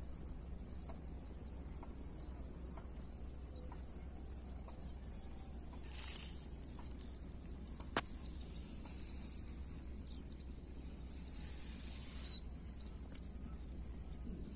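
Steady high-pitched drone of insects, with scattered short bird chirps and a single sharp click about eight seconds in.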